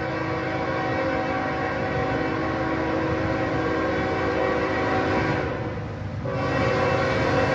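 Approaching locomotive's multi-chime air horn sounding a long, held chord. It fades briefly about five and a half seconds in, then a second, louder blast begins, over the low rumble of the train.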